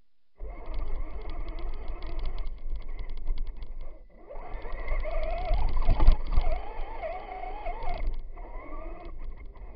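Electric motor and gearbox of a Traxxas Stampede 2WD RC truck whining, the pitch rising and falling with the throttle, over rumble and clatter from the tyres and chassis. It starts suddenly about half a second in, dips briefly near the middle, and is loudest just after.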